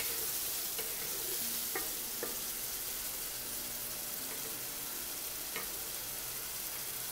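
Onion, spice and tomato masala sizzling in a pan as a wooden spatula stirs it, with a few light knocks and scrapes of the spatula against the pan.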